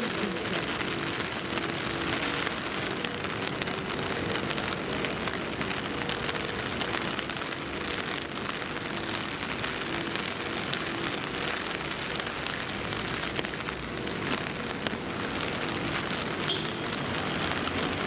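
Typhoon rain falling steadily on the street and pavement, an even hiss with a faint low steady hum under it in the first half.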